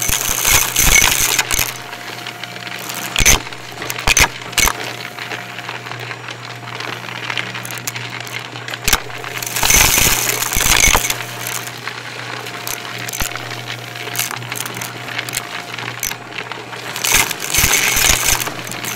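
Shark Navigator upright vacuum running with a steady motor hum while it sucks up crunchy debris. Grit and particles rattle and crackle through the nozzle and hose in repeated bursts, loudest a few times.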